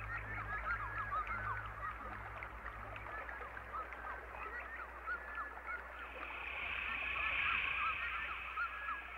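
A chorus of many short, overlapping animal calls, with a low pulsing beat fading out over the first few seconds and a hiss swelling up near the end.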